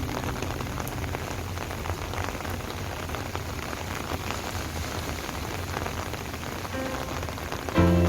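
Steady rain falling, an even hiss with a dense patter of drops. Near the end, music comes in loudly over it.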